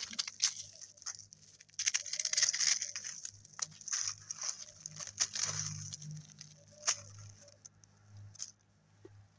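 Hailstones and wet leaves being sifted and squeezed by hand: irregular icy crunching and crackling mixed with leaf rustle, close to the microphone.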